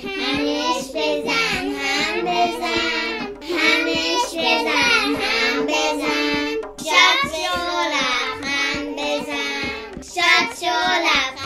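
A child singing a song, in several phrases a few seconds long with short breaks between them.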